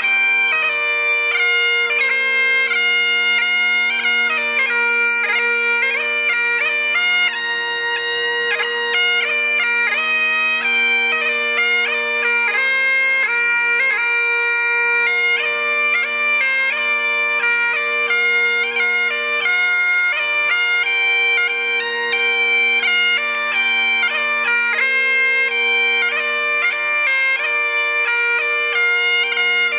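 Great Highland bagpipe played solo: steady drones sounding under the chanter's melody, without a break.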